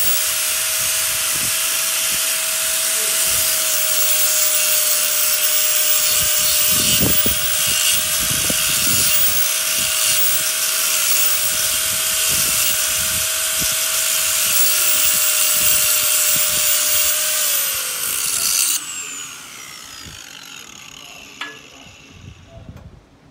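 Angle grinder running steadily with a constant whine while grinding on the rusty steel of a transplanter's wheel arm. About 17 seconds in it is switched off and winds down with a falling pitch, and a single sharp click follows near the end.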